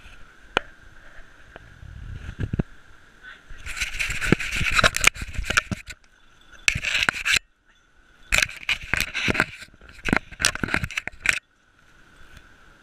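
Scraping and rubbing right on a GoPro's housing in three bursts, with sharp clicks and knocks among them, as the camera is jostled among dogs.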